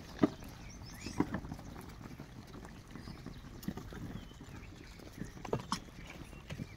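A troop of gray langurs feeding on bananas: scattered short clicks, soft knocks and rustles as the monkeys move and handle fruit and peels on sandy ground, over a quiet background.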